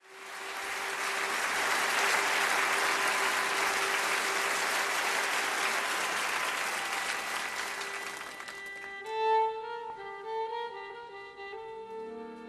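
Audience applause over a long held note, the applause stopping suddenly about nine seconds in; then violin and accordion play a slow melody in sustained notes, with double bass coming in near the end.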